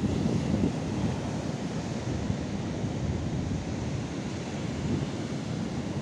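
Sea surf washing onto a sandy shore, a steady rushing noise, with wind buffeting the microphone.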